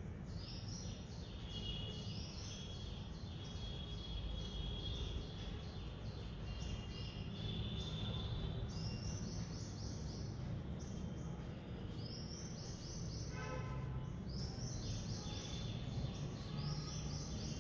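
Pen tip scratching on paper in quick short strokes, coming in runs of several strokes with brief pauses, over a steady low hum.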